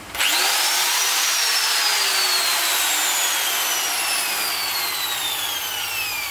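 Corded electric drill boring into a wall. It starts just after the beginning with a quickly rising whine, then runs on with a whine that slowly falls in pitch over a rough grinding noise.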